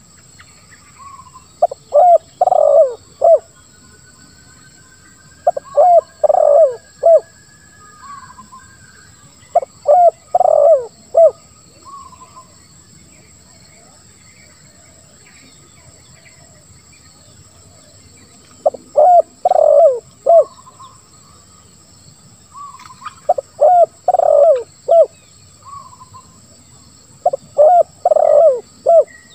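Spotted dove (tekukur) cooing: six phrases of three or four short, low coo notes, repeated every few seconds.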